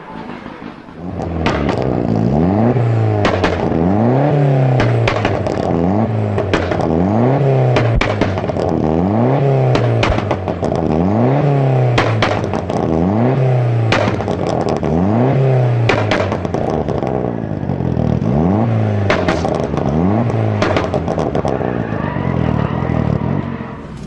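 Car engine revved hard over and over, its pitch rising and falling about once every second and a half, with the exhaust popping and cracking sharply on each rev.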